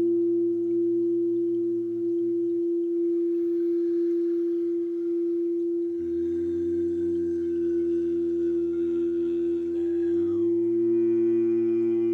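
Sound-healing drone: a steady pure tone held throughout, with layered, long-held sung tones of the chant syllables LAM and om around it that shift pitch a few times, one sliding upward near the end.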